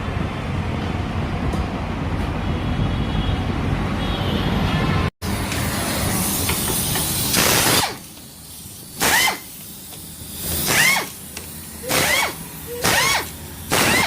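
Short blasts of compressed air from a workshop air gun, hissing with a slight whistle, about five in a row roughly a second apart. They come after a steady, even noise that stops at a sudden cut.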